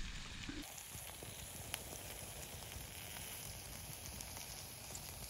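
Steak and vegetables frying in a small camp frying pan: a steady, gentle sizzle at a moderate heat, with one faint click partway through.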